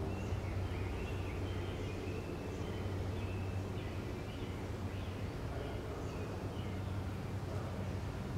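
Outdoor ambience: a steady low hum with faint bird chirps scattered throughout.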